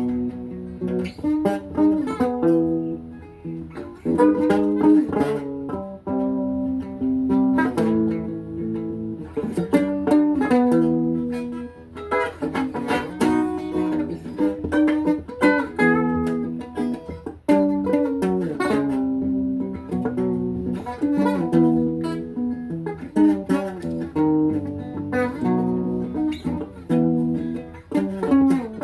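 Guitar music: a guitar playing a continuous run of plucked notes and chords.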